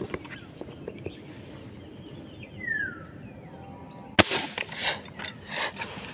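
Outdoor handling noise: a sharp knock about four seconds in, followed by rustling and scraping as the camera and the gear are moved. A single short falling whistle, like a bird call, comes a little before it.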